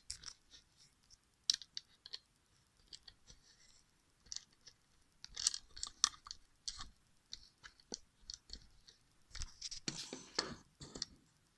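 Irregular small clicks and rustles of handling close to the microphone, with a denser cluster about ten seconds in.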